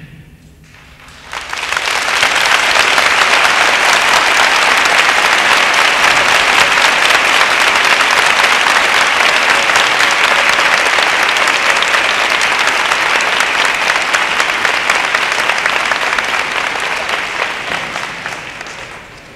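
Large audience applauding, rising quickly about a second and a half in, holding steady, and dying down near the end.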